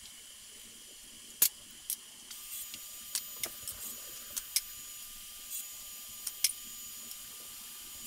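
Light clicks and taps of cedar plywood pieces being handled and set down on a table saw's top, scattered and irregular, the sharpest about a second and a half in. From about two seconds in a faint steady high whine sits underneath.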